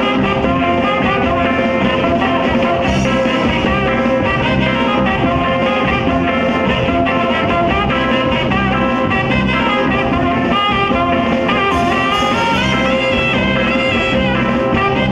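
Live dance band playing, a three-saxophone section carrying the melody over electric guitar, bass, drums and congas.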